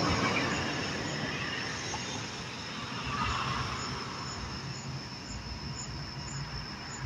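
Outdoor background noise: a steady rumbling hiss with no voice, swelling slightly near the start and again about three seconds in.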